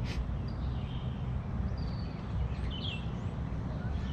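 Outdoor ambience on an open golf course: a steady low rumble with a few short bird chirps around the middle.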